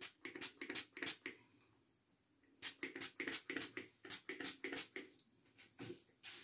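Finger-pump spray bottle of leave-in hair product misting onto wet hair in quick puffs, about three a second. The puffs come in runs, with a pause of about a second between them.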